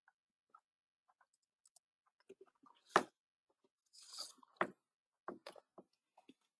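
Scattered small clicks and knocks close to the microphone, with one sharp louder knock about three seconds in and a short hiss just after four seconds, then a few more clicks.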